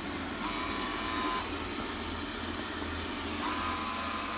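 Xiaomi robot vacuum cleaner running with a steady mechanical noise. A high steady tone sounds twice over it, each about a second long, about three seconds apart.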